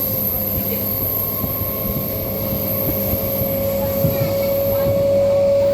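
Suburban electric multiple-unit train running, heard from inside the coach: a steady rumble of wheels on rail under a thin motor whine that rises slowly in pitch.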